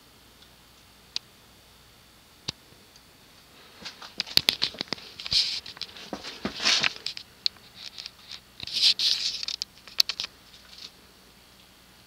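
Irregular clicks and rustling: two single clicks, then two busy clusters of clicking and scratching a few seconds each.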